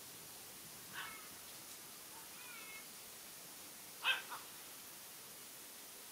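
Dogs play-wrestling, one giving short high-pitched yelps and whines: a soft yelp about a second in, faint whining squeaks, then a louder double yelp about four seconds in.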